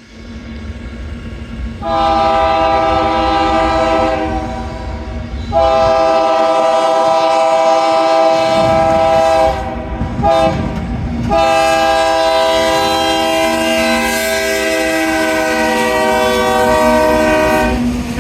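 Freight locomotive's multi-chime air horn sounding the grade-crossing signal: two long blasts, a short one, then a final long blast, over the rumble of the passing train.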